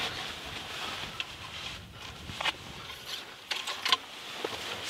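A few soft, irregular crunches and clicks, as of movement in frozen snow and dry grass, over a steady faint hiss.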